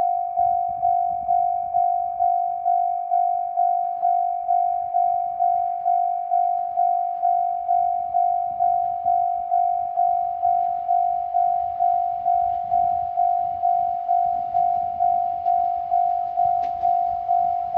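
Japanese level-crossing warning bell ringing steadily, a single bright electronic ding repeated about twice a second. In the second half a faint hiss and a few clicks build up underneath it.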